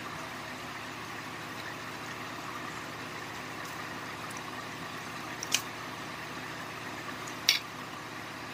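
Steady background noise with a faint low hum, and two short, sharp clicks about two seconds apart, a little past halfway and near the end.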